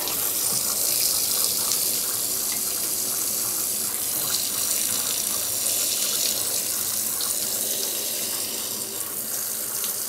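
Hot water running steadily from a handheld sprayer head into the wash tub of a portable twin-tub washing machine, splashing onto the wet clothes as the tub fills for the rinse.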